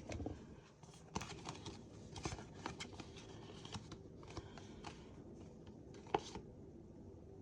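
Faint, scattered light clicks and taps of small objects being handled, with one sharper click about six seconds in.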